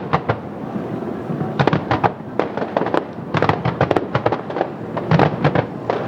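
Fireworks bursting in a rapid string of sharp bangs and crackles: a few at the very start, then a short lull, then a dense run from about a second and a half in.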